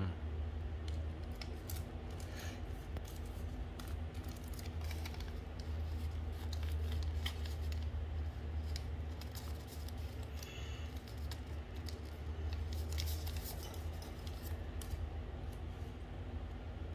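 Small scissors snipping colored origami paper, with the paper rustling and creasing as it is handled: scattered crisp clicks and snips. A steady low hum runs underneath.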